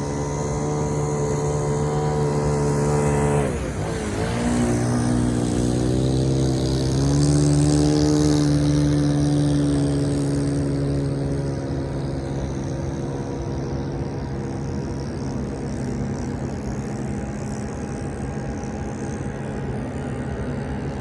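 Engine of a homemade propane-powered RC boat running steadily. About three and a half seconds in, its pitch drops sharply, then climbs back up over the next few seconds and holds, a little quieter towards the end.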